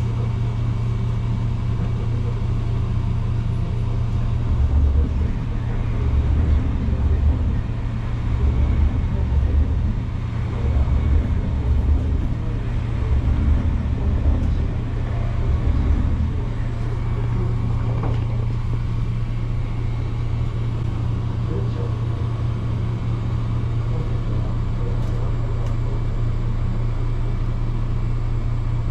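Diesel railcar heard from inside the passenger cabin: a steady low engine hum and track rumble. From about five to sixteen seconds in, a heavier low throb swells and fades repeatedly.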